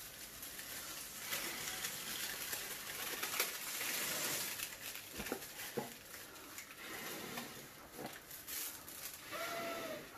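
Breath blown in several puffs onto a rubber balloon shrunk by liquid nitrogen, warming it so it inflates again. A short squeak comes near the end.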